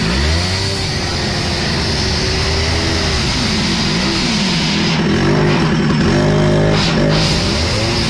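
Petrol cut-off saw cutting through sheet metal, its engine pitch dipping and rising again and again as the abrasive disc bites, over a steady grinding hiss.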